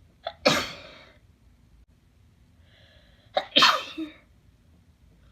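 A person sneezing twice in a wet sneeze fit, the two sneezes about three seconds apart. A drawn-in breath comes just before the second.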